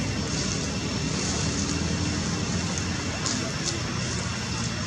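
Steady low mechanical hum over a constant background noise, with no distinct events.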